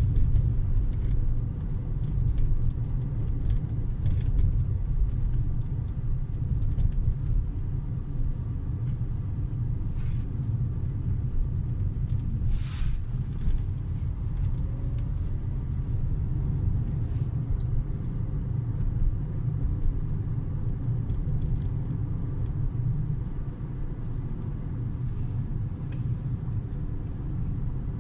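Steady low road rumble inside the cabin of a new Hyundai Creta on a smooth road, broken by a few short, sharp creaks from the plastic centre console tunnel, the loudest a little before halfway through.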